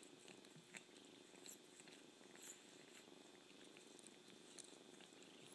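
Quiet, steady cat purring, with small wet clicks and slurps of an adult cat licking a kitten's fur.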